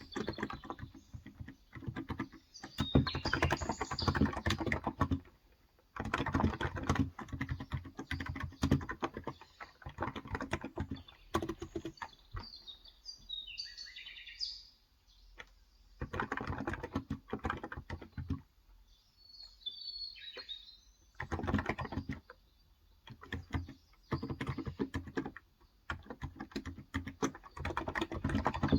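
Typing in runs of rapid keystrokes with short pauses between them on a Cox Endeavor electro-capacitive tenkeyless keyboard with 35 g switches. Birds chirp in the background, most clearly in two lulls in the typing around the middle.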